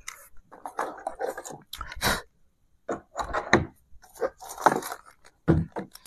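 Door hardware being handled on a wooden door: irregular clicks, knocks and scrapes as a metal lever handle is set in place and small fittings are picked up.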